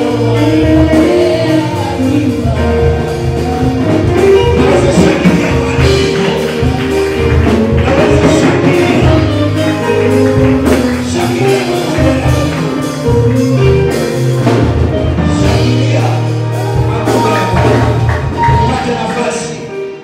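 Gospel worship music in a church service: voices singing over a bass line and percussion, dropping away right at the end.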